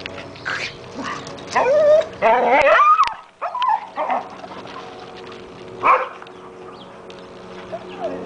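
Dog giving excited high cries that slide up and down, loudest from about one and a half to three seconds in, then short single yips, as it chases a squirrel.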